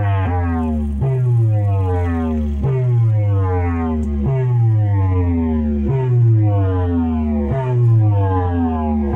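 Electronic sound effect played through a DJ amplifier deck's loudspeaker: a deep, buzzy tone that slides down in pitch, then jumps back up and falls again, about once a second. The deck is being played as a test after repair.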